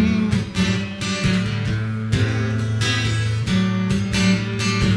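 Steel-string acoustic guitar strummed in a steady rhythm, chords ringing between sung lines.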